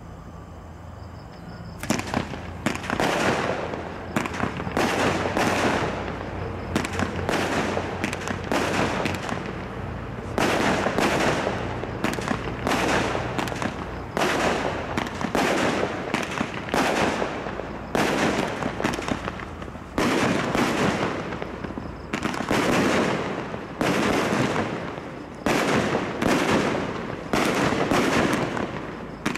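An 85-shot single-ignition fireworks cake firing, starting about two seconds in. It goes as a steady run of shots and aerial bursts, about one or two a second, each a sharp bang that dies away in a short noisy tail.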